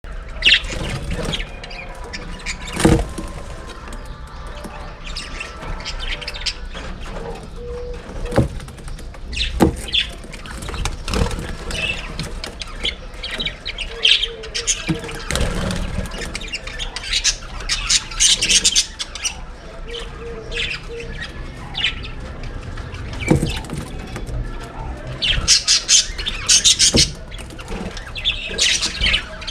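A flock of captive budgerigars (Australian parakeets), about 28 birds, chattering, chirping and squawking together without a break. A few sharp knocks stand out among the calls.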